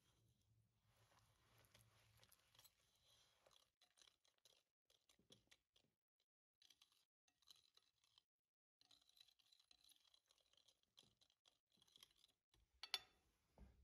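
Faint, irregular scraping and ticking of a hand wire whisk against a glass bowl as it beats labneh and sugar into a cream, with short pauses, and one sharper, louder clack near the end.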